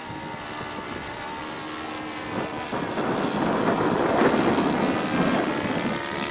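Saito 82 four-stroke glow engine of a radio-controlled Seagull Decathlon model airplane running in flight. It grows louder and rougher about three seconds in, then eases slightly near the end.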